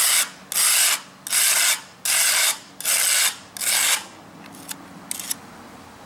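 A scraper blade drawn in short strokes over a concrete driveway, smoothing the edge of fresh crack sealant. About six scrapes of roughly half a second each fill the first four seconds, then only a couple of faint scuffs.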